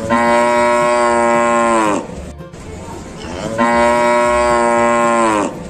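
A cow mooing twice, each moo a long held call of about two seconds that drops in pitch as it ends.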